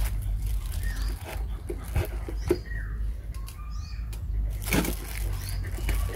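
Close handling sounds as grilled fish is torn apart and mixed into rice: a plastic bag crinkling and a few sharp knocks of a metal spoon in a steel bowl, over a steady low rumble.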